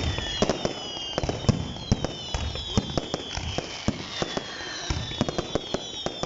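Fireworks going off: a rapid run of sharp pops and crackles, with several high whistles falling in pitch overlapping one another.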